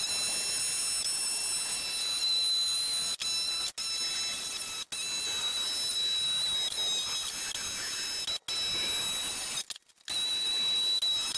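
Jigsaw cutting along the curve of a thick wooden tabletop: a steady high motor whine that breaks off abruptly and resumes several times.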